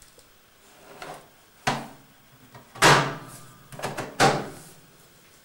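Knocks and clunks from a Supertatramat automatic washing machine as its porthole door and top-panel controls are handled. There are three loud clunks with a short ringing tail, about a second apart, the middle one loudest, plus a few lighter knocks.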